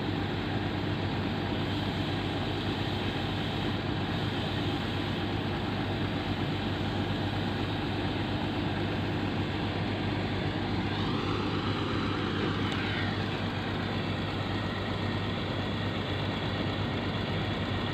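Hitachi ZX200 excavator's diesel engine running steadily, with a steady low hum. A faint whine rises and falls about two-thirds of the way through.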